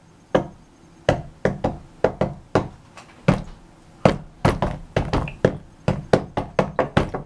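A half-frozen plastic water bottle being knocked about twenty times in quick, uneven taps to loosen the ice inside so the water will pour; the taps come faster in the second half.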